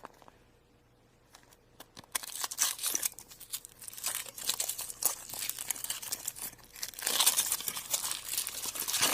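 Foil wrapper of a chocolate surprise egg being torn and peeled off by hand: quiet for the first two seconds, then continuous irregular crinkling and tearing, busiest near the end.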